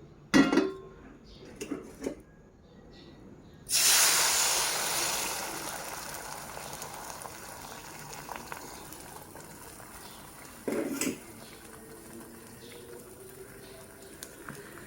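Kitchen sounds: a sharp clatter, then a few lighter knocks. About four seconds in, a loud hiss starts suddenly and fades slowly over several seconds, with another clatter partway through.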